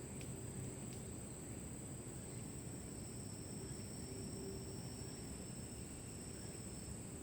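Steady high-pitched insect chorus over a low outdoor rumble, with a second, thinner high insect tone joining about two and a half seconds in and stopping near the end.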